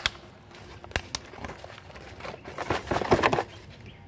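Potting soil poured from a plastic bag into a flowerpot: the plastic rustles and crinkles and the soil patters in, loudest about three seconds in, with a few small clicks before that.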